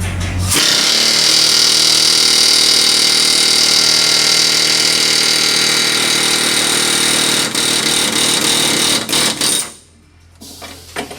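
A power tool runs steadily at full speed for about nine seconds, then stops abruptly, leaving a few short bursts near the end.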